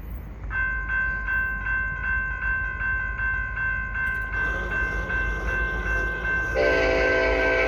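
Railroad crossing bell ringing in quick, even strokes, starting about half a second in. Near the end a Union Pacific freight locomotive's air horn comes in, loud and steady, over the bell as the train approaches the crossing.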